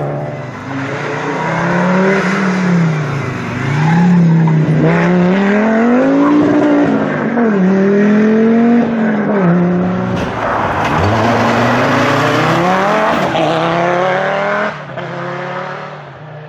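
Rally car engines revving hard, the pitch climbing through the gears and dropping back on each shift or lift, several times over. The engine sound falls away shortly before the end.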